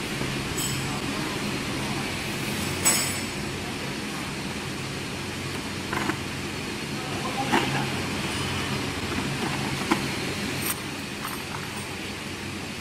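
Steady workshop hum with a few short clinks and knocks of metal and plastic spare parts being handled on a table, the sharpest about three seconds in.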